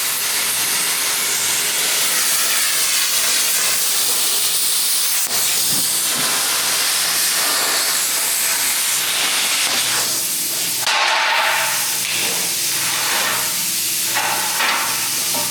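Steady, loud hiss of a high-pressure cleaning jet with a low hum underneath, likely blasting old grease off the PTO driveline yokes. The hiss changes character about eleven seconds in.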